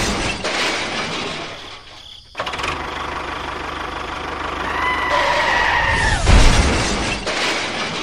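Dubbed-in vehicle sound effects: a motor runs steadily, a high squeal like a skid comes in about five seconds in, then a loud crash comes around six seconds and fades.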